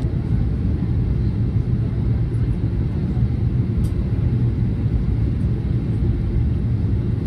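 Steady cabin noise inside a Boeing 737-800 in flight: the low, even rumble of its CFM56-7B turbofan engines and the air rushing past the fuselage, heard from a window seat by the wing.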